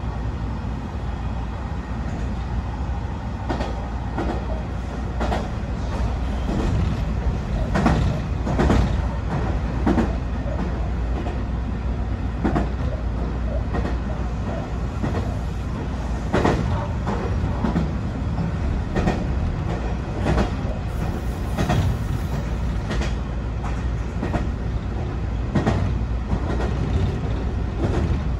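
BEC819 series DENCHA battery-electric train running along the track, heard from inside the leading car: a steady low rumble with irregularly spaced sharp clicks of the wheels passing over rail joints.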